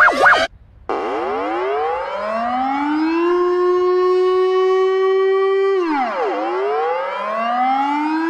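A fast warbling alarm tone cuts off about half a second in. Then a civil defense siren wails: its pitch climbs over about two seconds, holds steady, drops sharply about six seconds in, and climbs again.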